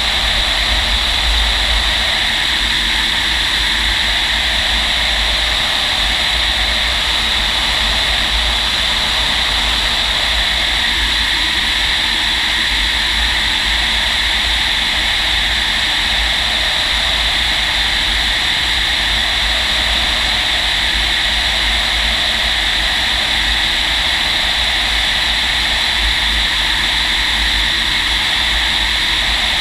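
Steady rush of airflow inside the cockpit of a FOX glider on aerotow, with a constant low rumble and a steady high hiss.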